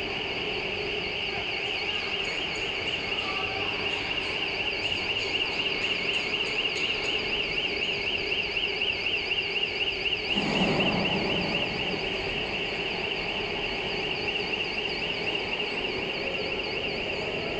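A warbling electronic alarm tone, rising and falling several times a second, over a steady low hum. About ten seconds in a brief louder rush of noise lasts about a second, and the alarm is fainter afterwards.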